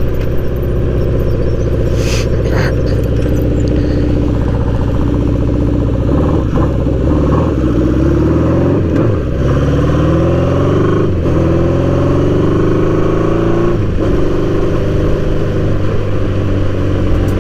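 Honda CB750 cafe racer's air-cooled inline-four engine running while the bike is ridden, heard from the handlebars. Its pitch climbs and drops several times as the bike speeds up and changes gear.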